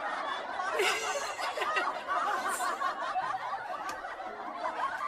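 People laughing without a break.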